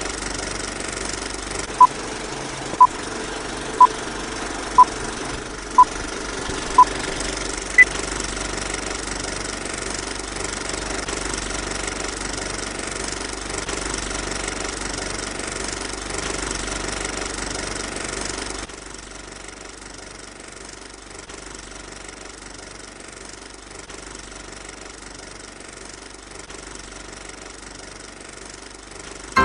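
Old film projector running with a steady mechanical clatter, under a countdown-leader sequence of six short beeps a second apart and a seventh, higher beep. About two-thirds of the way in, the clatter drops to a quieter level.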